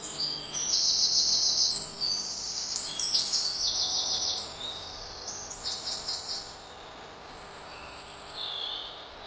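Small birds chirping in rapid, high-pitched trills, several bursts one after another, the loudest about a second in and a softer one near the end.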